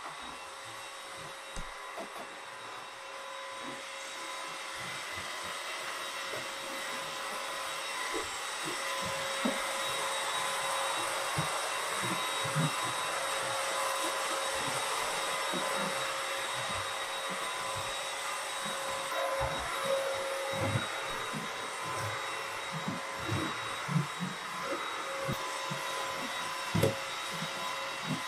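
Stick vacuum cleaner running steadily, a hiss with a motor whine, growing louder toward the middle and then easing, with scattered light knocks.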